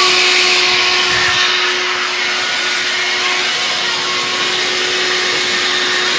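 A motor running steadily with an even whirring hum and a constant low tone.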